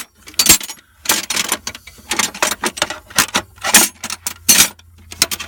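Metal wrenches clinking and clattering against each other in a toolbox drawer as they are rummaged through: a string of irregular sharp clanks.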